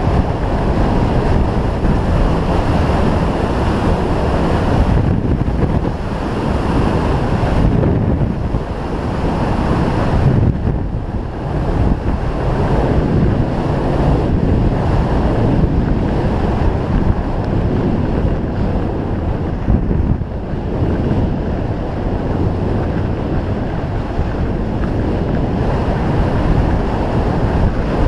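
Rushing wind buffeting the microphone of a GoPro carried at skiing speed, mixed with the hiss and scrape of Fischer RC4 skis on packed snow; the noise rises and falls every few seconds.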